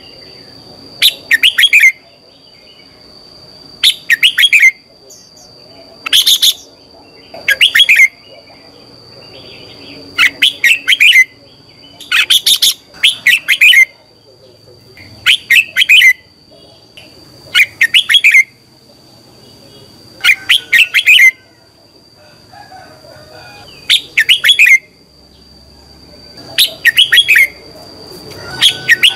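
Red-whiskered bulbul singing: short, quick, bright phrases, repeated every couple of seconds.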